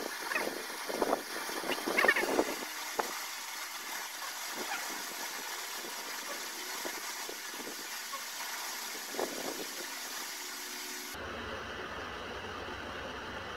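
Butane gas torch burning with a steady hiss, its flame held on a small firework to light it. A few knocks and handling sounds come in the first couple of seconds. About 11 seconds in, the hiss gives way abruptly to a duller steady noise with a low hum.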